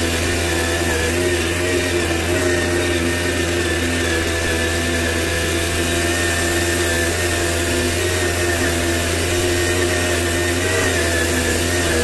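Tomos CTX 80 moped's 80 cc two-stroke engine running under way at a steady, nearly constant pitch.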